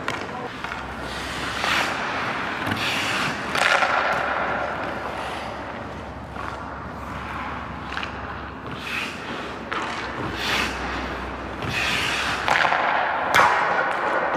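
Ice hockey practice on the rink: skate blades scraping and carving the ice in repeated strokes, with several sharp knocks of stick on puck and puck striking pads or boards.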